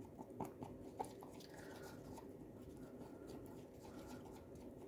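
Faint scraping and light tapping of a wooden stir stick against the sides of a thin plastic cup as resin is stirred, with a few sharper clicks in the first second or so.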